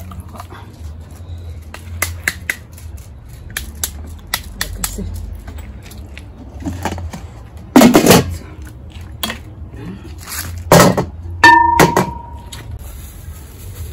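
Pots and kitchen utensils knocking and clinking in a series of irregular knocks, with three loud clanks in the second half. One clank rings on briefly in a steady tone.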